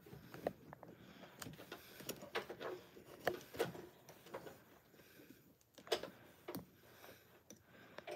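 A cloth wiping and dusting the top of a Singer sewing machine's casing: faint, irregular rubbing with small knocks and taps.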